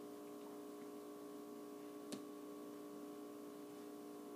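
Low, steady electrical hum made of several even tones, with a single faint click about two seconds in.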